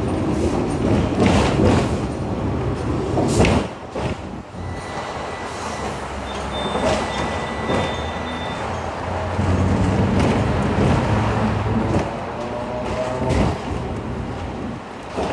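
Hong Kong double-decker electric tram running along its street track, with a steady low rumble, rattling and irregular knocks from the wheels and body, the sharpest about three and a half seconds in. A faint thin high tone sounds for a few seconds in the middle.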